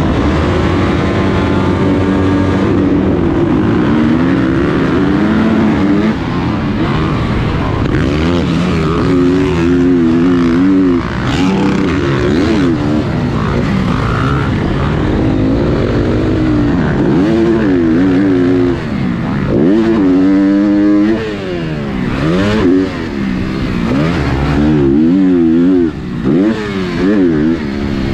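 Motocross bike engines racing at full throttle. The rider's own bike revs hard, its pitch climbing and dropping over and over through gear changes and throttle chops, with other bikes running close by.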